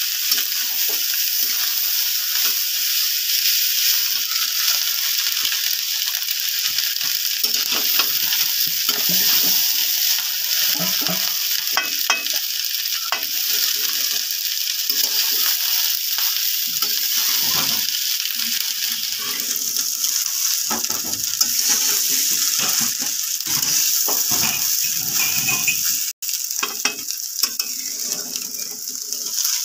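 Rice and vegetables sizzling in hot oil in a metal kadai, stir-fried as bhat bhaja, with a steady hiss throughout. A flat metal spatula scrapes and tosses the rice against the pan in quick, irregular strokes.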